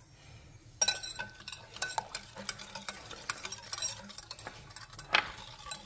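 Wire whisk stirring a liquid jelly mixture in a glass bowl, its wires clicking and scraping quickly against the glass. It starts about a second in, with one louder knock near the end.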